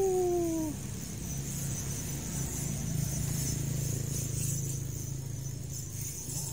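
Low engine hum of road traffic passing close by, swelling about halfway through and easing off toward the end. A short falling tone sounds right at the start.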